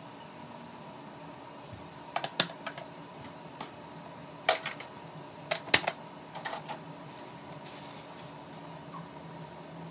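Chicken broth heating in a wok toward a simmer: scattered sharp pops and ticks as bubbles break through the foam, the loudest about halfway through, over a steady background hum.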